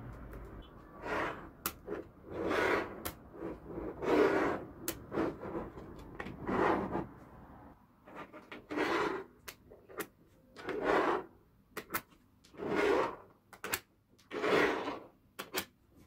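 Magnetic balls being slid and rubbed against each other and over the table in repeated scraping swells about every two seconds, with sharp clicks of balls snapping together in between.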